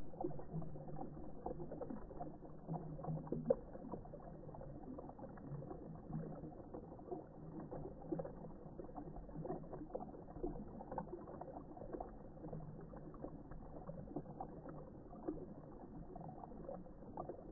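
Stream water rushing and splashing over rocks in a small cascade: a steady bubbling wash with frequent small splashes, a little louder in the first few seconds.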